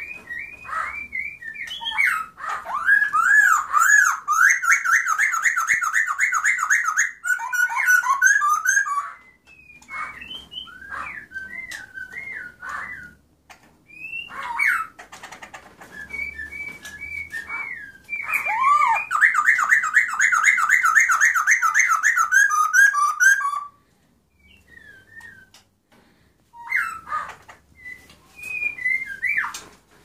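Caged songbird singing loud whistled phrases. Twice it breaks into a long run of fast repeated notes lasting about five seconds, with scattered single whistles and short phrases between.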